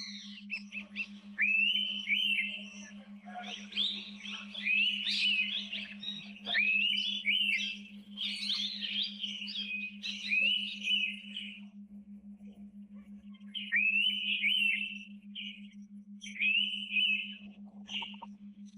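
A bird singing long runs of quick, clear whistled notes that slide up and down. It pauses for a moment partway through, then starts again. A steady low hum runs underneath.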